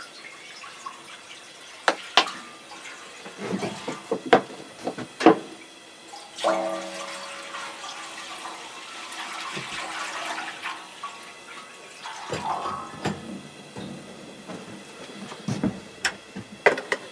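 Maple sap poured from a large plastic jug into a stainless steel evaporator pan: liquid splashing into the pan for about five seconds starting around six seconds in. Knocks and clicks from handling the jug come before and after the pour.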